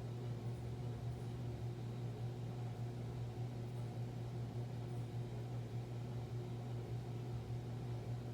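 Steady low hum with a light hiss: the room's background tone.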